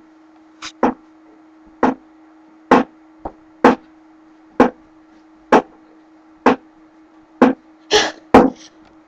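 Sharp ticking clicks, about one a second with a few coming in quick pairs, over a faint steady hum.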